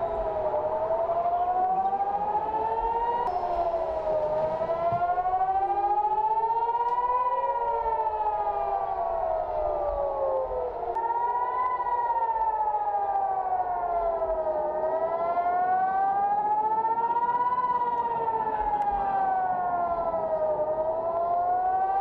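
Outdoor civil defense warning siren wailing, its pitch gliding slowly up for about three seconds and back down for about three seconds, over and over. More than one siren is heard at once, out of step with each other.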